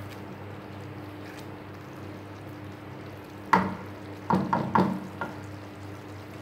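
Wooden spatula stirring thick chana dal in a pan, over a steady low hum. A little past halfway come a few sharp knocks of the spatula against the pan: one, then a quick cluster, then a weaker one.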